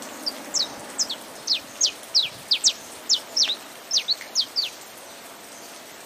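Saffron finch singing: a quick run of sharp, steeply falling chirps, about three or four a second, that stops a little before the end. A steady hiss of rain lies underneath.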